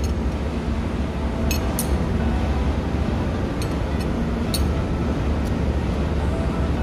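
Steady low machinery rumble throughout, with half a dozen light metallic clinks as a ring spanner works the nuts on a diesel cylinder head.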